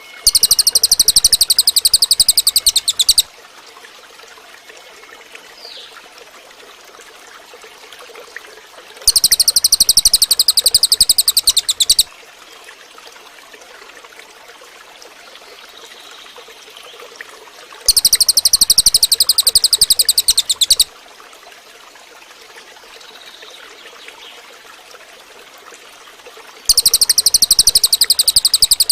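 Cililin bird song: a loud, very high, rapid buzzing trill about three seconds long, repeated four times roughly every nine seconds, over a faint steady background hiss.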